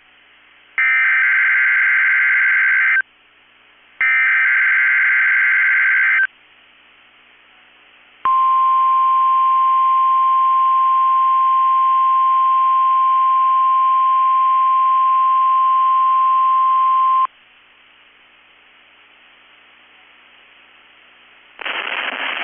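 Emergency Alert System SAME header on NOAA Weather Radio: two harsh, warbling bursts of digital data, each about two seconds long and a second apart, closing out the header of a Required Weekly Test. About two seconds later the steady 1050 Hz weather radio warning alarm tone sounds for about nine seconds and cuts off abruptly; this tone switches on specially built alert radios. A few seconds later an announcer's voice starts, right at the end.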